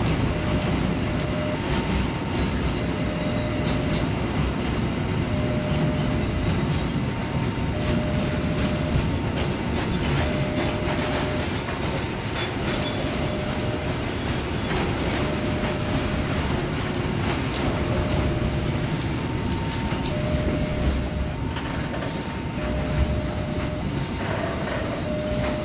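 Long container freight train of flatcars rolling steadily past on the rails. Over it, a level-crossing warning signal sounds continuously, alternating two tones, high and low, about a second each.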